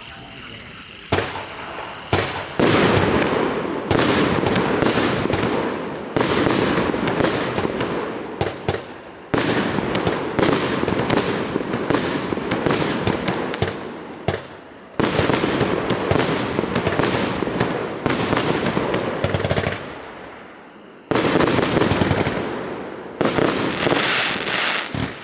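A 36-shot consumer fireworks cake with 25 mm tubes firing shot after shot for about 25 seconds. Each sudden blast trails off over a second or two, with a few short pauses between groups of shots.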